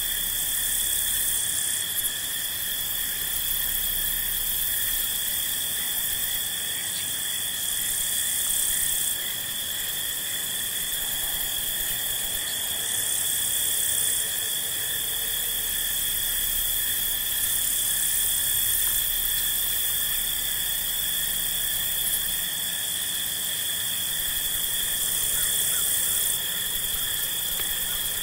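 Crickets trilling in a steady, unbroken evening chorus over a high hiss.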